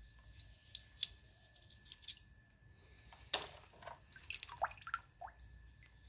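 Water dripping and splashing into a basin of soaking freshwater snails as wet hands pick them out, with small clicks of the shells being handled and snipped. The splashing and drops are loudest a little past halfway.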